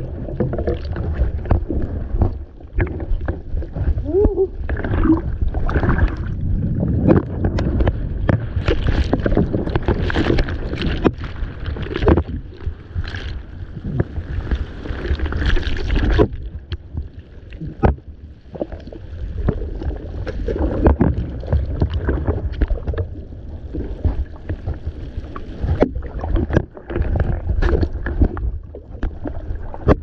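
Surf whitewater churning and gurgling right at the microphone, with a constant low rumble and many sharp splashes and knocks. It eases off for a while from about halfway through, then picks up again.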